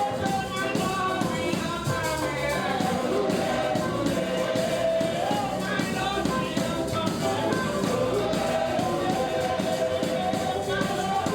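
Church praise music: singing over instruments, playing continuously.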